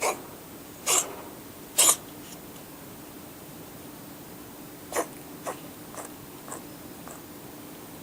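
Siamese cat coughing in short, sharp hacks: three loud ones in the first two seconds, then four weaker ones about half a second apart from about five seconds in.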